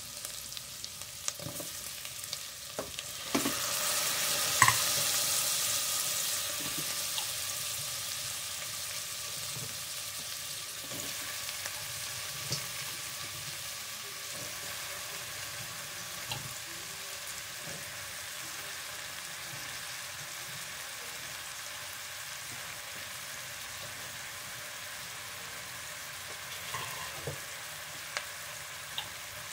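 Butter and oil sizzling in a stainless steel pot with diced onion and halved mushrooms being added. About three seconds in the sizzle swells sharply, with one loud knock, then eases back to a steady sizzle with occasional light taps of a utensil on the pot.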